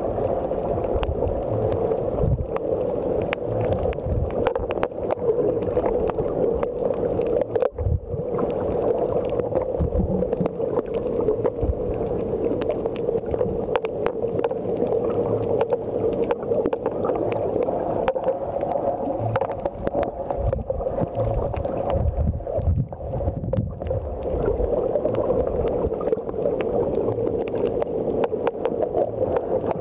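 Underwater ambience picked up by a camera on a coral reef: a steady hum with continual crackling clicks and irregular muffled low thumps.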